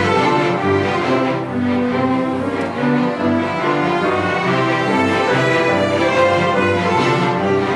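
Orchestra playing, with bowed strings to the fore over a repeating low bass note.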